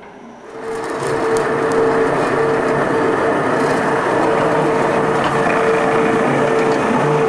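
Pilatusbahn electric rack railcar running, a steady whine from its drive held over a loud rumbling noise. The sound swells up about half a second in and then stays level.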